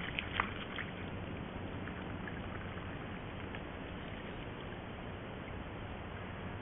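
Steady hiss of a trail camera's microphone, with a few brief splashes and clicks in the first second or so from a sambar stag moving in a muddy wallow.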